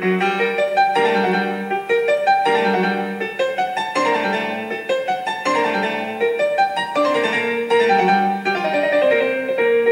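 Background piano music: a melody over chords.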